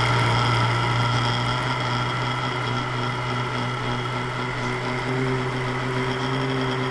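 Electric countertop blender motor running steadily at full speed, puréeing a liquid mix of ripe banana, eggs and milk into a smooth flan batter.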